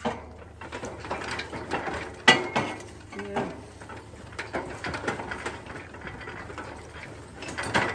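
Rustling and trampling through tall shoreline weeds, mixed with knocks and scrapes of a steel pipe being handled as a pry bar, with one sharp knock about two seconds in.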